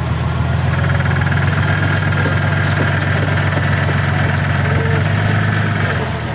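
Off-road Jeep's engine running under load, heard from inside the vehicle. The engine note shifts up about a second in and dips briefly near the end.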